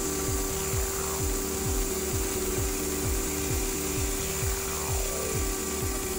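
Ribbonet fibre blowing head running, driving a fibre bundle into a microduct with compressed air: a steady air hiss over a steady hum, with a fast, even low pulsing underneath.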